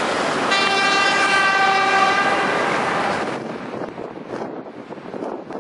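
A vehicle horn sounds one long, steady, unwavering blast of about two and a half seconds over rushing street noise. Both fall away together a little past three seconds in.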